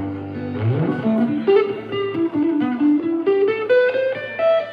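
Guitar playing a single-note lead line that climbs in pitch note by note, with a sliding bend about half a second in.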